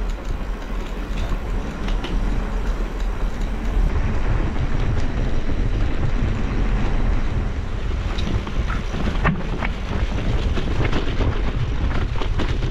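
Mountain bike moving along a rocky stream bed: steady wind rumble on the microphone with the bike's rattles and sharp clicks. It gets louder about four seconds in.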